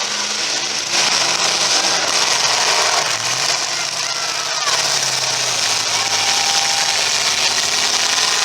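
Demolition derby cars' engines running and revving hard, a loud continuous din with engine notes rising and falling.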